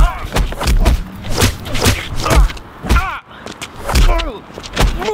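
Two men scuffling: repeated thuds and slaps, about two a second, mixed with short shouted cries and grunts.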